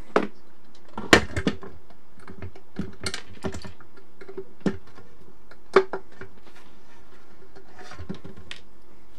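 Irregular sharp clicks and snaps of small side cutters working the rivets of worn feet out of a metal instrument case, with metal bits tapping on the case and bench. The loudest snap comes just before the six-second mark, over a faint steady hum.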